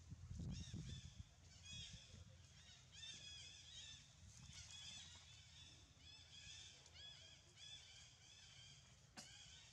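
Infant long-tailed macaques squeaking: a steady run of short, high, rising-and-falling squeaks, faint and repeated many times.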